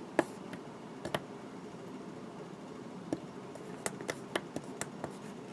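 A scattering of light clicks and taps over a faint steady hiss, sparse at first and more frequent in the second half.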